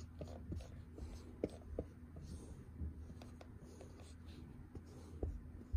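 A marker writing on a whiteboard drawing board: faint short scratching strokes and light ticks of the tip on the surface.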